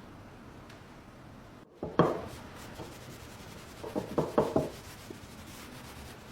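Hand work on a metal gas cylinder being restored: one sharp hit or scrape about two seconds in, then a quick run of four or five short rubbing strokes a couple of seconds later.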